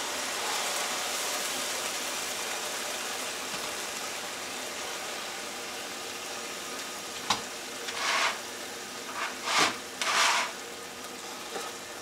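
Venison steaks sizzling in a hot skillet, the frying hiss slowly dying down. From about seven seconds in there is a click, then a few short, louder hisses as the steaks are lifted out of the pan with a fork.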